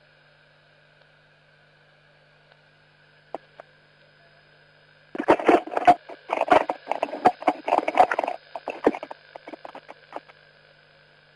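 Radio channel hiss with a steady low hum, broken by a couple of clicks, then a loud burst of harsh crackling, garbled transmission about halfway through that lasts about three seconds before trailing off into scattered crackles.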